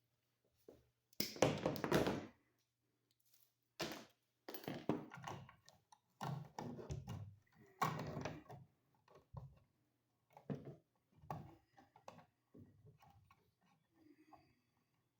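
Hands and wire cutters working electrical wires in a junction box: a run of irregular scraping, rustling and knocking noises, the loudest about a second in.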